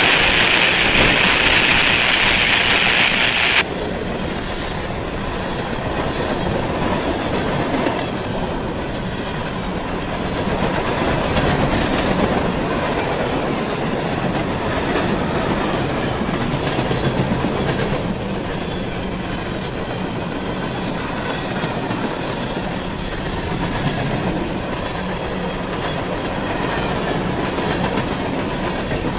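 Freight train cars rolling past, their wheels running steadily on the rails. A loud high hiss in the first three and a half seconds cuts off suddenly.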